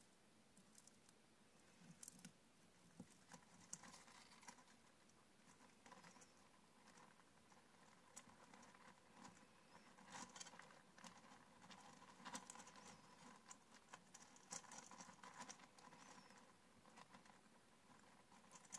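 Dwarf hamster eating seed mix: faint, irregular crunching and clicking as it chews and picks through the food, growing busier in the second half.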